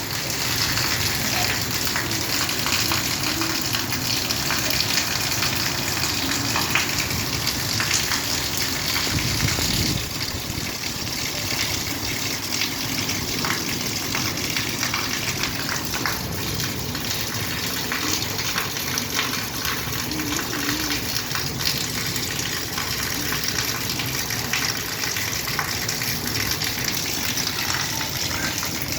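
Heavy rain falling steadily, a dense hiss with scattered sharper drop hits, slightly softer after about ten seconds.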